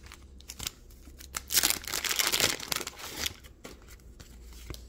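Paper wax-pack wrapper of a 1987 Donruss baseball card pack being torn open and crinkled by hand: a dense paper rustle for about two seconds in the middle, with light taps and clicks of handling before and after.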